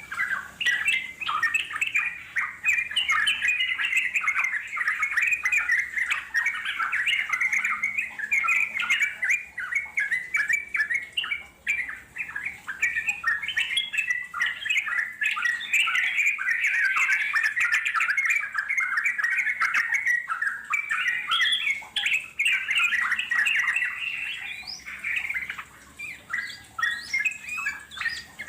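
Yellow-vented bulbul (trucukan) chattering in a long, fast, unbroken run of short notes: the rolling 'ngeropel' song.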